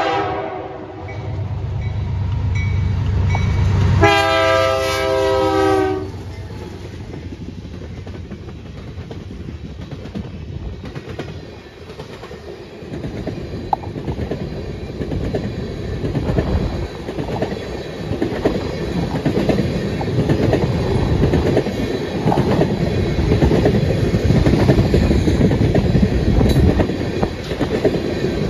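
A GE C44-9W diesel locomotive's air horn chord ends just after the start, then sounds again for about two seconds around four seconds in, as the train nears the grade crossing, over the low rumble of the locomotive engines. Then a long string of loaded-looking tank cars rolls by, the wheels clacking over the rail joints and growing louder toward the end.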